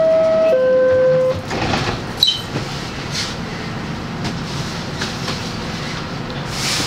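Two-note descending door chime of an R62A subway car, a higher tone then a lower one, followed about two seconds in by a sharp clank as the doors close. After that comes the steady noise of the stopped train.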